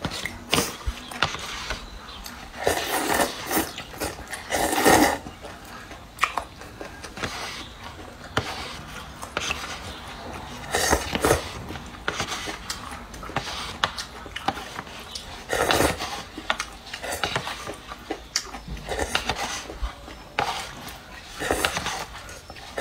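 A person slurping wide rice noodles and broth from a paper bowl, in loud bursts every few seconds, with chewing and small clicks of chopsticks between.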